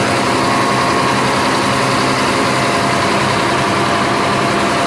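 Diesel engine of a river sand dredge running loud and steady, its note even throughout.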